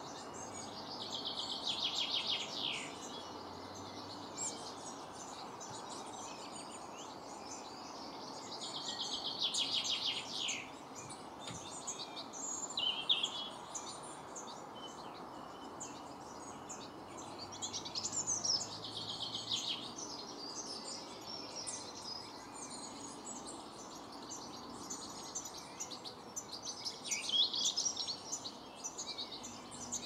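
Garden songbird singing the same short phrase four times, about every eight or nine seconds: a quick run of high notes that drops away at the end. Other birds chirp in between, over steady background noise.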